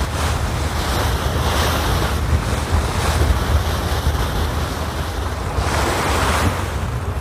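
Wind buffeting the microphone with a low rumble, over sea water washing against a small fishing boat. The wash swells and fades a couple of times.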